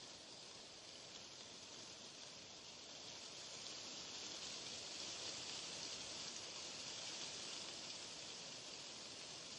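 Steady white-noise hiss, a little louder through the middle.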